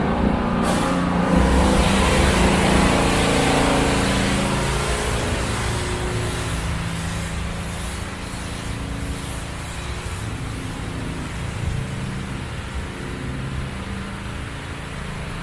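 Motor vehicle noise with a steady engine hum, loud at first and fading steadily over the seconds.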